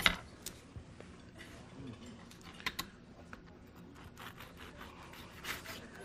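Scattered light clicks and taps of kitchen utensils and dishes being handled, with a sharper click at the start and a few more near the end.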